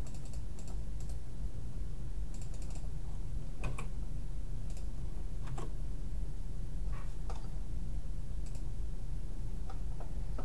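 Scattered, irregular keystrokes and clicks on a computer keyboard and mouse, a few at a time with pauses between, over a steady low hum.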